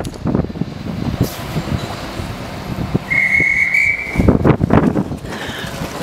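A railway whistle sounds once, a high steady tone about a second long, a little after three seconds in, over low rumbling noise. Just after it come a few heavier knocks and rumbles.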